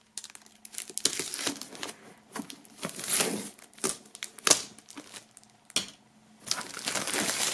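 Plastic shrink-wrap film crinkling and crackling as a knife blade slits it along the edge of a cardboard box, in irregular sharp crackles. Near the end the crinkling becomes a denser, continuous run as the loosened film is handled.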